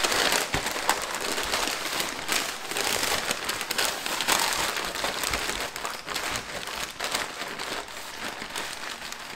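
Pink butcher paper crinkling and rustling as it is folded and pressed tightly around a pork butt: continuous crackly paper handling that grows gradually quieter near the end.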